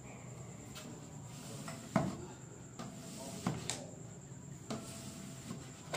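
Hands pressing a vinyl sticker onto a sheet-metal sign box, making several scattered knocks against the metal panel, the sharpest about two seconds in.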